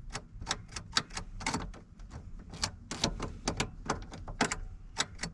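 Irregular sharp plastic-and-metal clicks, about three or four a second, as a new ignition lock cylinder assembly is worked and clicked into place in a 2001 Chevrolet Suburban's steering column.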